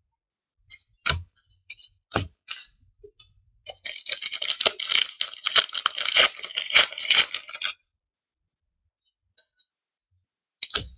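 Hockey card pack wrapper being torn open and crinkled for about four seconds, after a couple of sharp taps as cards are set down on the table.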